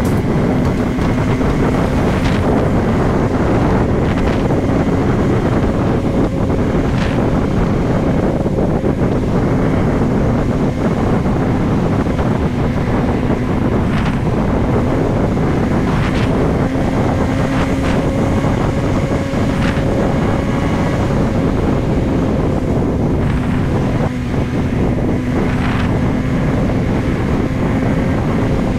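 Motorcycle engine running at a steady cruising speed, its drone holding one pitch, under heavy wind noise on the microphone.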